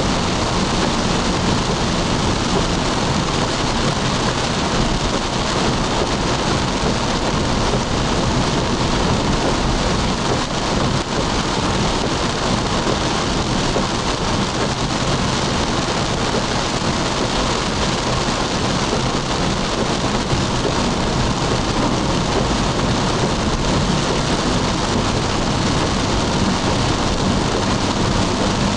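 Steady rush of heavy rain on a moving car together with tyre noise on the wet road, heard from inside the cabin, with a low rumble underneath.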